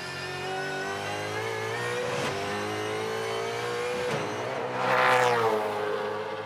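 Ford Mustang Supercar's V8 racing engine at full throttle, its pitch climbing steadily, with short breaks at gear changes about two and four seconds in. It is loudest about five seconds in.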